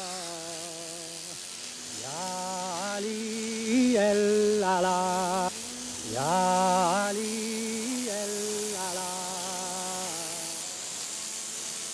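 A man singing solo in long held notes with vibrato, sliding up into each phrase, over a steady hiss from the marble carvers' pneumatic tools.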